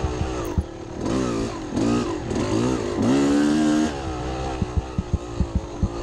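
Two-stroke engine of a 2000 Yamaha YZ250 dirt bike with an FMF Fatty pipe, revving up and down hard as it is ridden along a woods trail. In the last second and a half comes a quick run of sharp knocks as the bike goes over rough ground.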